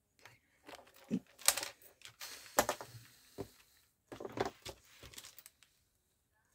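Hands handling craft materials on a work surface: irregular clicks and taps with short stretches of rustling. The sharpest clicks come about one and a half and two and a half seconds in.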